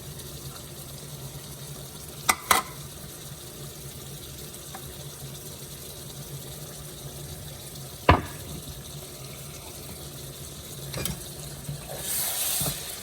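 Kitchen work over a steady low hum: a few sharp clacks of utensils or dishes, two close together early, one louder a few seconds later, and another after that. A brief hiss comes near the end.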